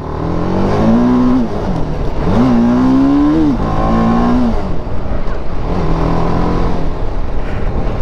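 Motorcycle engine under way, its pitch rising with the throttle, holding, then dropping back three times in the first half, before settling to a lower steady pitch. A steady rush of noise runs underneath.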